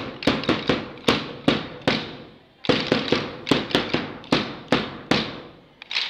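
Hand dumbbells clacked together in unison by a large group doing a drill: sharp strikes at about three a second, in two runs of about eight with a brief pause about two seconds in.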